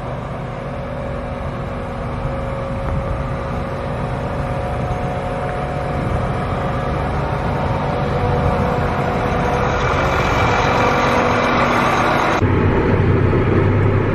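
John Deere tractor's diesel engine running steadily, growing louder. About twelve seconds in, the sound cuts to inside the tractor cab, where it is deeper and muffled.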